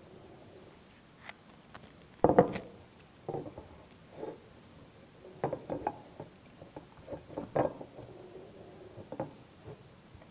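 A glass jar and its contents being handled on a kitchen table: scattered small knocks and clinks, the loudest about two seconds in, with a busier run of them between about five and eight seconds.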